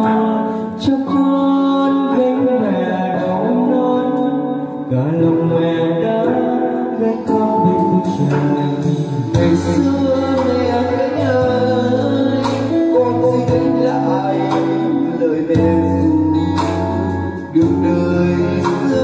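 Men singing karaoke into a handheld microphone over backing music, one man's voice taking over from the other's partway through.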